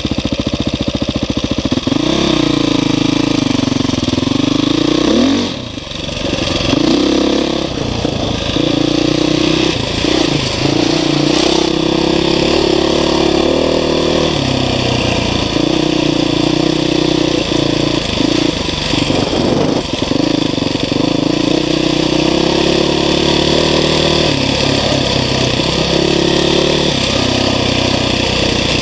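Trail motorcycle engine running as it is ridden, its note rising and falling with the throttle, with a short drop-off about six seconds in.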